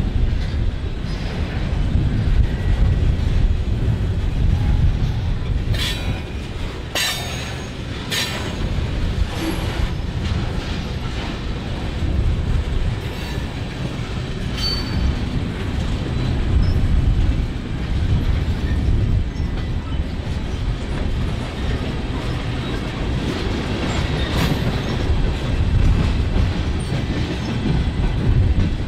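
Freight train rolling past: a steady heavy rumble from the diesel locomotives and wagons, with wheels clacking over the rails, and a few sharp clanks about six to eight seconds in.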